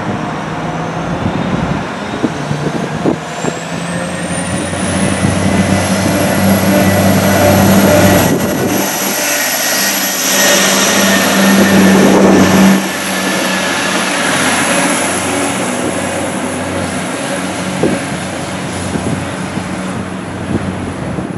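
Arriva Trains Wales Class 175 diesel multiple unit passing along the platform, its diesel engines running under power with wheel-on-rail noise, loudest as it goes by about ten seconds in. A high whine rises in pitch over the first few seconds and then holds steady.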